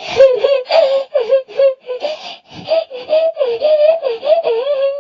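High-pitched crying: a voice sobbing in short, wavering cries, two or three a second, with little pause between them.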